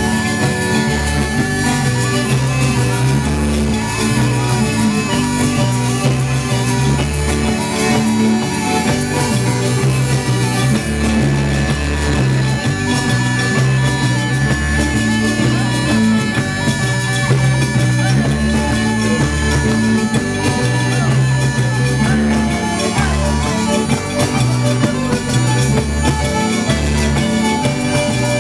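Live folk music led by a zampogna, the southern Italian bagpipe, with its drone held throughout, over a diatonic button accordion, tambourine, bass guitar and drums keeping a steady beat.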